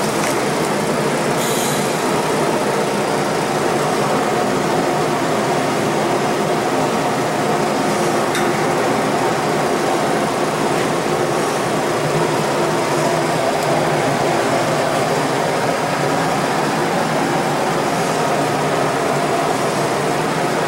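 Workshop machinery running steadily, a continuous even drone with a steady hum, with a few faint ticks.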